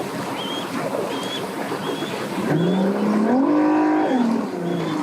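An engine revs up about halfway through, holds at higher revs for about a second, then drops back down.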